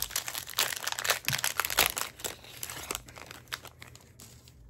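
A trading-card booster pack wrapper being torn open and crinkled by hand: a dense run of crackles that thins out about four seconds in.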